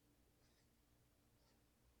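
Near silence: a pause in typing, with only a faint steady low hum.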